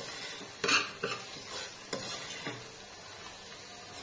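Spatula stirring soaked chana dal frying in oil in a metal pressure cooker: a few scraping strokes against the pot, the loudest under a second in, over a faint sizzle.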